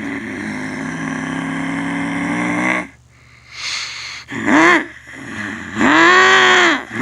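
Blacksmith monster truck's supercharged V8 running steadily, then dropping off suddenly about three seconds in. It is revved in a short sharp blip and then a longer burst near the end, each rising and falling in pitch.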